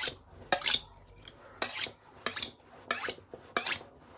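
Kitchen knife blade drawn along a honing steel: six short, bright metal-on-metal scraping strokes, one every half second to second. The blade is being given its finishing touch after sharpening on a stone.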